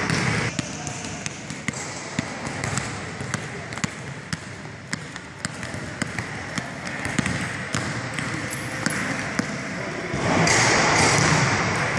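A basketball being dribbled quickly on a gym floor: a run of sharp, irregular bounces. Near the end there is a louder rush of noise lasting about a second.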